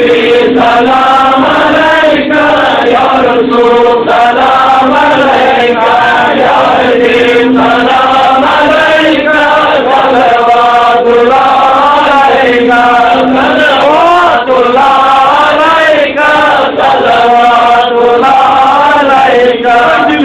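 Men's voices chanting a devotional chant, continuous, with long held notes and sliding pitches.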